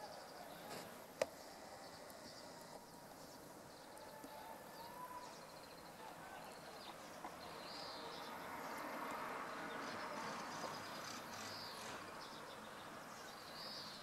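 Faint outdoor ambience with short, high bird chirps now and then and a single sharp click about a second in. A soft swell of background noise rises in the second half.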